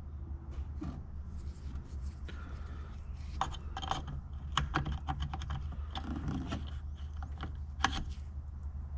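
Irregular small clicks, taps and rattles of a car door lock mechanism and its clips being handled and fitted inside the door, with a steady low hum underneath.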